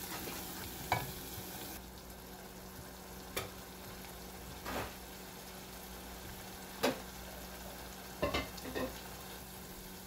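Chopped onions and ginger sizzling in oil in a saucepan while being stirred with a wooden spoon. The hiss eases about two seconds in, and a handful of sharp knocks of the spoon against the pan sound through it.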